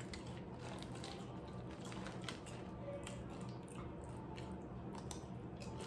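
A person chewing a mouthful of loaded shrimp nachos close to the microphone: many small wet mouth clicks and squishes.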